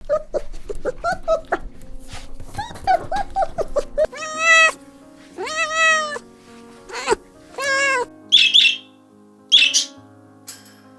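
Cats meowing over soft background music: first a quick run of short mews, then several long, drawn-out meows that rise and fall. Near the end come two short, high, scratchy calls.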